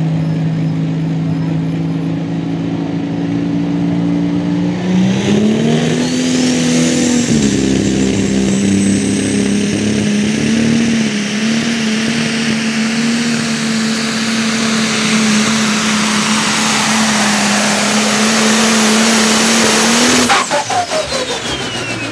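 Pro Stock pulling tractor's turbocharged diesel engine running steadily at the line, then revving hard about five seconds in, with a high whine climbing above it, and running at full load at a steady high pitch through the pull. About twenty seconds in it is shut off abruptly at the end of the pull, and a whistle falls away.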